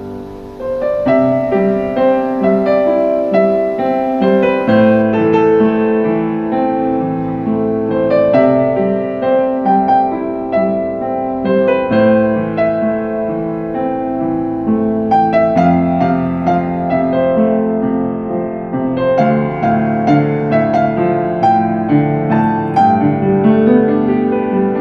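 Background music led by piano, with notes played in a steady flowing succession.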